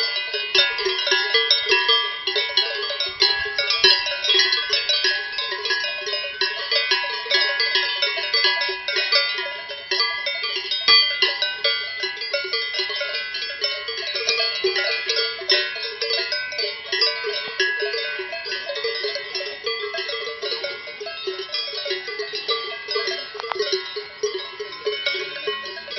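Many cowbells on a herd of cattle ringing at once: a continuous, irregular clanging of overlapping bells at several different pitches.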